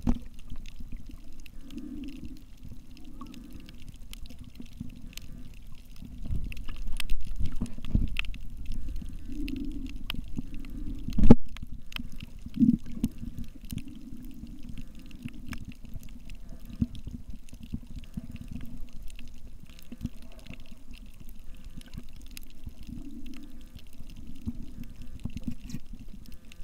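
Underwater sound picked up by a camera submerged over a reef: a steady low, muffled water noise with soft recurring swells and scattered faint clicks. A sharp knock comes about eleven seconds in.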